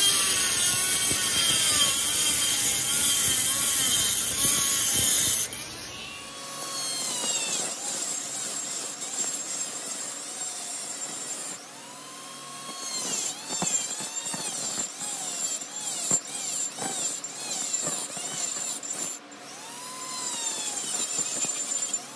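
Handheld rotary tool with a cutoff wheel grinding down a weld on a steel angle guide, a loud, hissy metal-on-abrasive grind that cuts off about five and a half seconds in, leaving a much quieter stretch.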